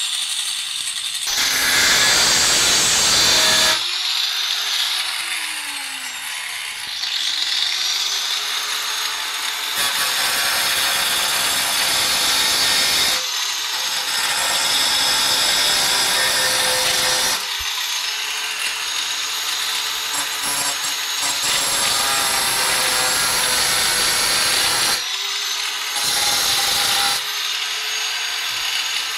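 Electric power tool working continuously, with its motor stopping and restarting several times; after each restart its whine rises as the motor comes back up to speed.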